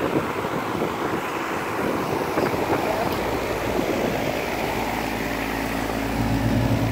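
Amana central air conditioner's outdoor condensing unit running: a steady rush of air from its three-blade fan, with a low compressor hum that grows stronger about halfway through.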